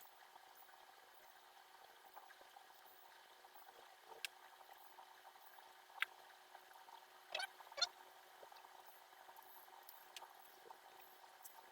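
Near silence broken by a few faint, short clicks, about four in all, of small tools and parts being handled during the phone's disassembly.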